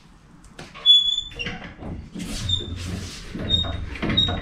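Small jack under a rear wheel being worked to push the wheel up against the suspension, giving a few short high squeaks with brief rustling noises between them.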